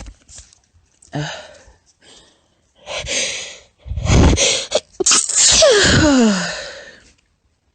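A woman sneezing: a few sharp intakes of breath, then a short sneeze about four seconds in and a longer, louder one just after, its voiced trail falling in pitch.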